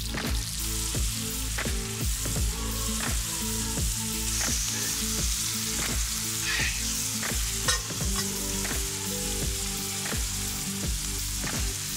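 Diced bacon, grouse breast, shallots and morels sizzling steadily in fat on a hot steel griddle over a wood fire. Background music with a steady beat plays underneath.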